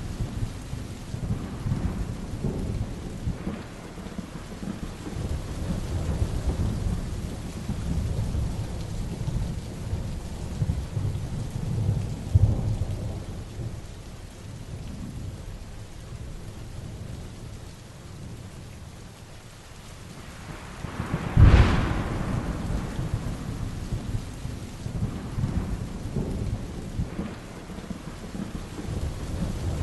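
Heavy rain falling steadily with thunder rolling low through it, and a sharp, close thunderclap about two-thirds of the way through, the loudest sound here.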